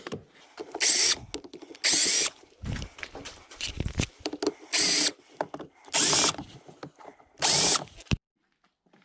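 Power drill running in five short bursts of about half a second each, with small clicks and knocks between them; it stops sharply near the end.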